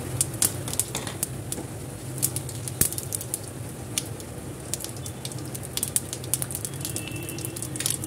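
Cumin seeds crackling in hot oil in a kadhai, many sharp irregular pops while they are stirred with a wooden spatula, over a steady low hum.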